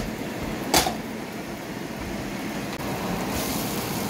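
Diced peppers and onions sizzling in a nonstick frying pan, a steady hiss that grows stronger near the end. One sharp knock about a second in, the loudest sound.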